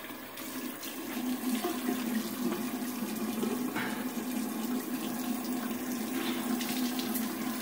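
Bathroom sink tap running steadily into the basin, with a steady hum beneath the splashing.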